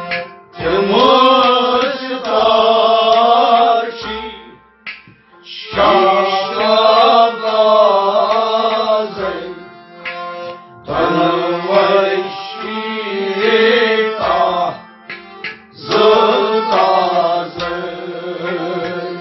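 Kashmiri Sufi devotional song: men singing long phrases, with brief breaks about every five seconds, over a harmonium and a plucked rubab.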